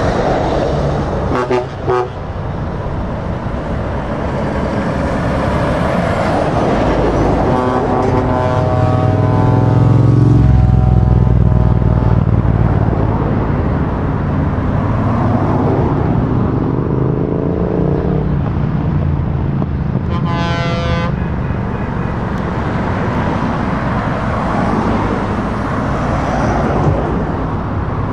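Heavy trucks and cars driving past, with a deep engine rumble that swells as a truck passes close about ten seconds in and an engine note whose pitch slowly falls. A horn toots once briefly about twenty seconds in.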